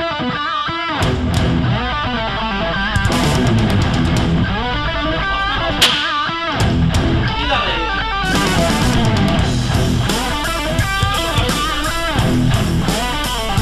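Rock music led by an electric guitar playing a melody with wavering, bent notes over a steady low backing.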